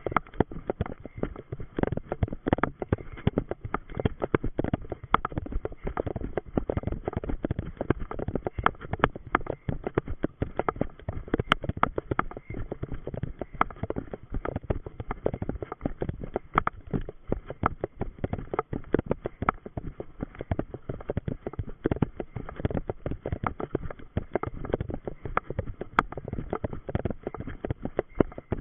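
Running footsteps on a forest dirt path, heard through a body-worn action camera: a steady stream of rapid thudding strides mixed with the camera being jolted and rubbed with each step.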